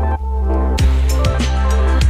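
Background music: sustained chords over a low bass, with a drum beat coming in just under a second in.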